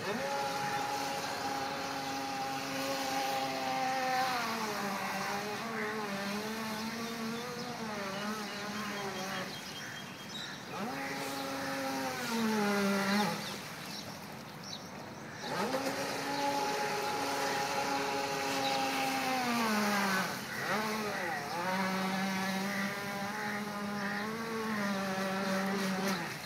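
Electric motor of a Hobbyking Princess RC speedboat whining at speed, its pitch sliding down and back up as the throttle is eased and opened. Halfway through it falls away for about two seconds, then climbs again.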